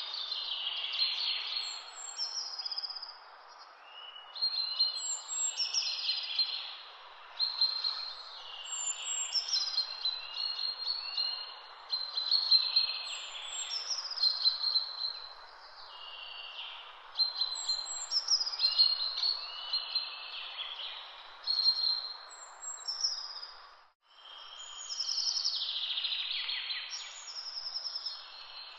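Songbirds singing in the hedgerows, one trilled phrase after another, over a steady background hiss. The sound cuts out for a moment near the end.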